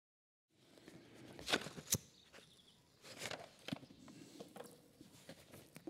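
Faint rustling and clicks of paper sheets being handled, over quiet outdoor ambience. The strongest rustles come about one and a half to two seconds in, with softer ones a little later.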